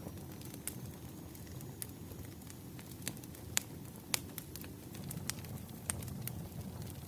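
Campfire burning with a steady low rush, broken by irregular sharp crackles and pops from the wood, a few of them louder than the rest.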